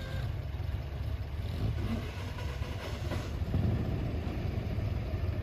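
Vintage car's engine running at low revs as it climbs a grassy trial section, a steady low thrum.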